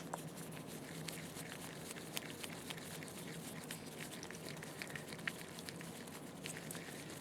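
Faint, scattered light clicks and small taps of hands handling the slit lamp's metal parts, over a steady low hum.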